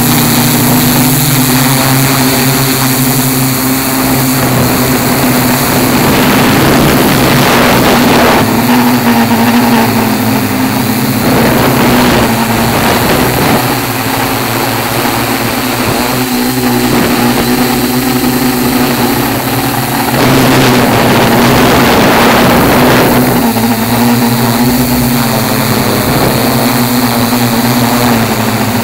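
Tarot 680Pro hexacopter's six motors and propellers droning steadily in flight, heard from a camera on the craft, the pitch wavering slightly. Wind rush swells over it in several gusts.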